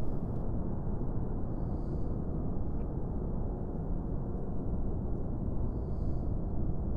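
Low, steady rumbling drone of film sound-design ambience, with two faint soft high tones about four seconds apart.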